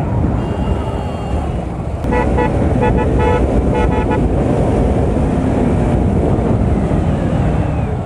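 Wind blast buffeting the microphone on a moving motorcycle in traffic, a steady low rumble. About two seconds in, a vehicle horn gives a quick run of short beeps lasting about two seconds.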